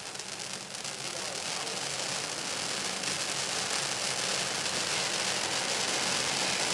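Fan-shaped stage firework fountain burning, its three jets of sparks giving a steady hiss that grows louder over the first few seconds as the fountain comes up to full spray.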